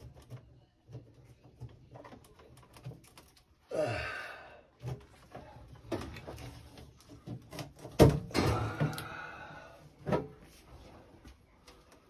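Sheet-metal combustion chamber cover of a Baxi boiler being worked loose and lifted off: light clicks, a scraping slide about four seconds in, then a loud clank about eight seconds in, followed by a ringing scrape and another knock.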